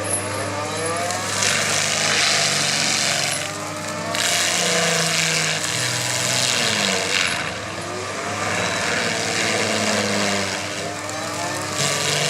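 Heavy stump-removal machine working: its engine runs steadily with the pitch rising and falling, and harsh rushing bursts of noise come and go several times, each lasting from one to a few seconds.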